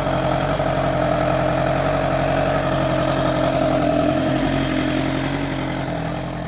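1986 Kawasaki GPZ1000R's inline-four engine running steadily at an even idle, fitted with replacement ignition coils, as it is warmed up to operating temperature to check whether the fault of falling on its face when hot is cured.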